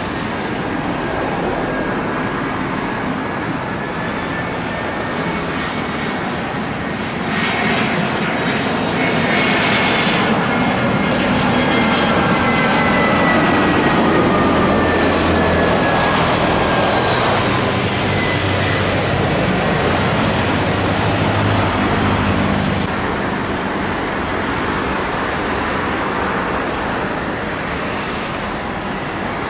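Airbus A320 jet airliner landing close by: the engine noise swells and its whine falls slowly in pitch as it passes, loudest near the middle. After a sudden change, a steadier, quieter jet noise from a rear-engined Embraer business jet's engines as it taxis.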